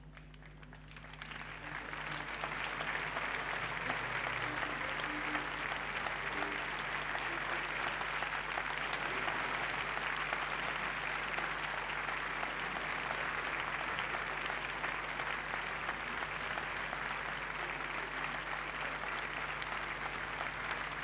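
Large audience applauding, swelling over the first couple of seconds and then holding steady.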